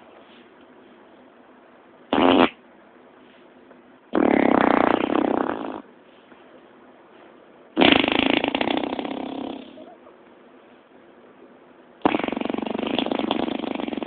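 Four fart noises: a short one about two seconds in, then three longer, buzzy ones of a second and a half to two seconds each, fading out at the end. They pass for the mysterious 'strange sky noise'.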